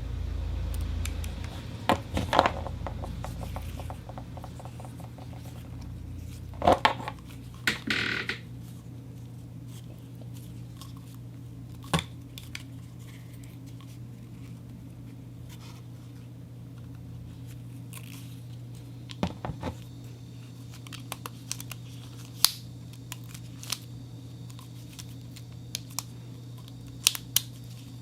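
Rubber and a syringe handled for sound effects: a few short noisy bursts in the first eight seconds, then scattered sharp clicks, over a steady low hum.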